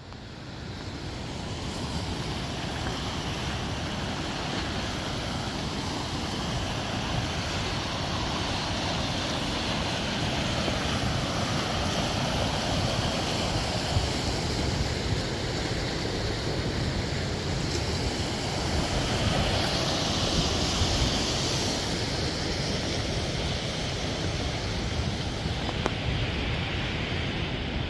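Whitewater river rapids rushing steadily, fading in over the first couple of seconds.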